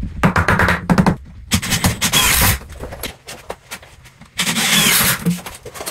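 Work on a wooden stud wall frame: a run of knocks and taps on 2x4 lumber, then two harsh, hissy sounds of about a second each, the second one about four and a half seconds in.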